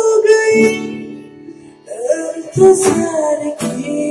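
A woman singing wordless held notes into a microphone over an acoustic guitar accompaniment. The voice fades about a second in, then returns, with guitar strums near the end.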